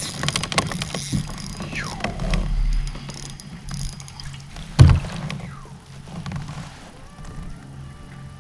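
Handling noise of fishing from a kayak as a small fish is reeled in on an ultralight spinning rod: a flurry of clicks and rattles from the reel and gear, then one sharp, loud knock about five seconds in, followed by quieter fiddling.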